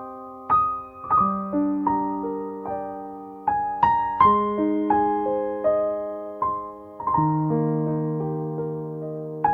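Background music: a slow, gentle piano piece, single notes and chords struck and left to ring and fade.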